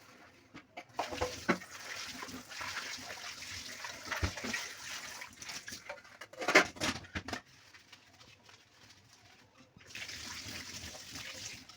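Water splashing and sloshing as fridge parts are washed by hand, with a few louder splashes a little past the middle.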